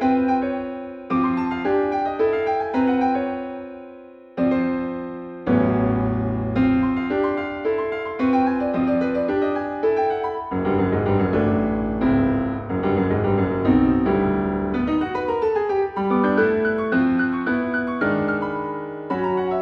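Solo piano playing a slow phrase of separate struck notes in the middle register. A deep bass comes in about five seconds in, and the music grows fuller and busier from about ten seconds.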